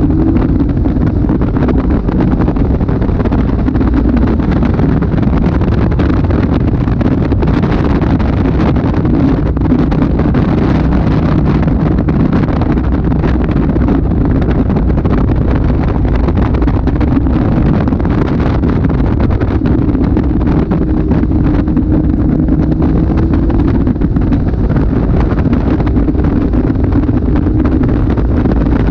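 Heavy wind buffeting on the microphone in the open cockpit of a Caterham Super 7 at speed, with the car's engine running underneath, its note shifting with the revs.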